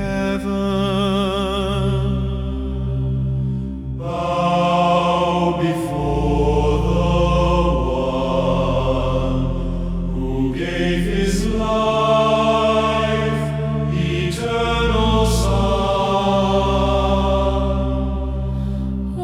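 Choir singing held, wordless chords over a sustained low bass, the upper voices with vibrato, the harmony shifting every few seconds.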